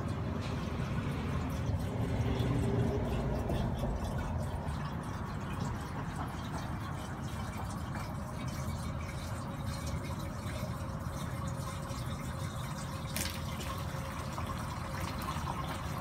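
Water swirling and splashing steadily in a homemade vortex fountain, its whirlpool draining down through a clear cylinder into the pot below.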